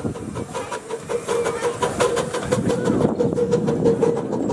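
Miniature steam locomotive working a passenger train past at close range, with rapid regular exhaust beats and steam hissing from its open cylinder drain cocks, over a steady tone.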